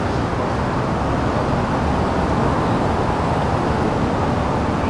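Steady city traffic noise, an even rumble and hiss with no single vehicle standing out.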